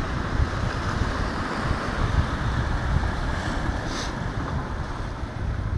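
Wind buffeting the phone's microphone in an uneven low rumble, over a steady wash of sea surf against breakwater boulders. A brief high click about four seconds in.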